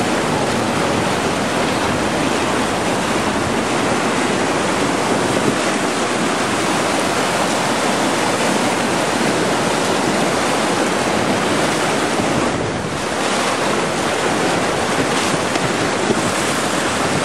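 Loud, steady rush of whitewater as a raft runs one of the bigger rapids of a river, water splashing over the boat. The level dips briefly about twelve seconds in.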